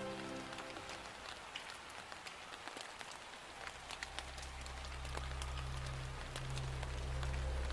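Rain falling, an even hiss with scattered individual drops ticking. The tail of the music dies away in the first second, and a low steady hum comes in about halfway.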